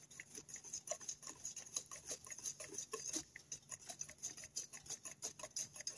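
Faint, irregular clicking and scraping of a mixing utensil against a metal bowl as flour is stirred into wet cake batter, several small ticks a second.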